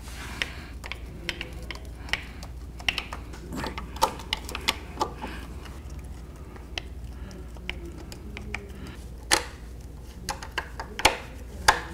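Irregular plastic clicks and knocks as the caster-arm shroud of a Quantum 4Front power chair is handled and pressed into place, then a screwdriver working its Phillips screws. The loudest knocks come about nine and eleven seconds in.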